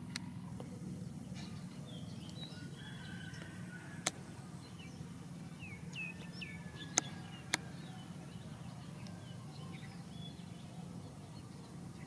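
Outdoor field ambience: a steady low rumble with small birds chirping intermittently, broken by a few sharp clicks, the loudest about four and seven seconds in.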